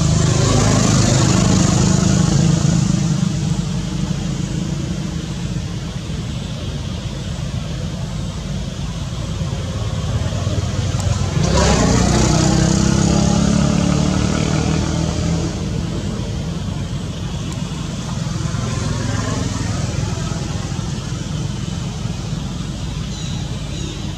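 Road traffic, running steadily, with two louder vehicle passes: one at the start and one that comes up sharply about halfway through and fades over a few seconds.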